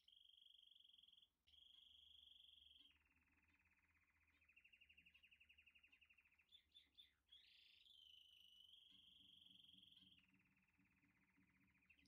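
Faint calls of small animals: high steady trills that start and stop abruptly, a rapidly pulsing trill in the middle and again near the end, and a few quick chirps about seven seconds in.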